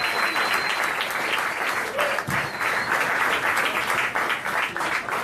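Audience applauding steadily, with scattered cheers, as a comedy set ends.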